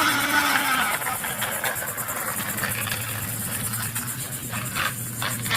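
Vehicle engine sound running at a steady idle, a low even hum that settles in about two and a half seconds in. Before it, a louder pitched sound falls away during the first second.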